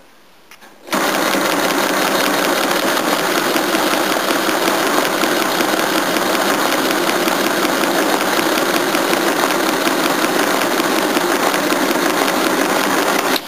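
Friden SW10 electro-mechanical calculator running a long multiplication. Its motor-driven mechanism cycles in a fast, steady clatter that starts about a second in and stops abruptly near the end, when the calculation finishes.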